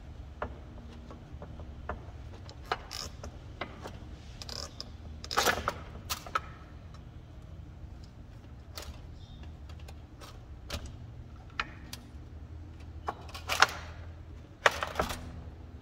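Scattered clicks, taps and knocks of a lithium battery bank being handled, as the cells with their threaded terminal studs are shifted and fitted against a steel end bar by hand. There are a few louder clatters, about five seconds in and twice near the end.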